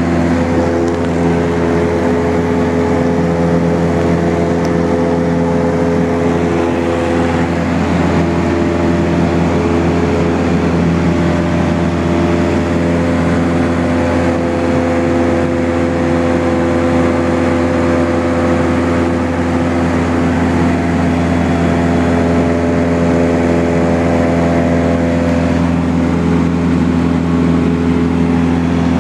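Cessna's single piston engine and propeller droning steadily in flight, heard from inside the cabin, with steady wind and airframe hiss.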